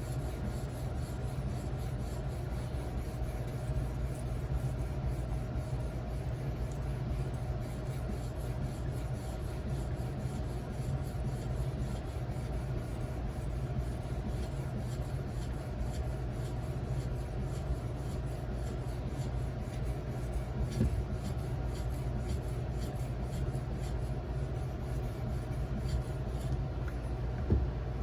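An 1100 grit Edge Pro sharpening stone stroked over and over along the edge of a 154CM steel knife blade, a light, even scraping, over a steady low hum.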